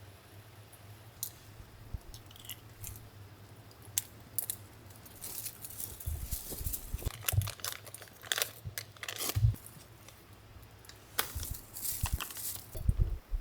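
Irregular crinkling and rustling with scattered light clicks and knocks, as of things being handled by hand; sparse at first, then much busier about six seconds in.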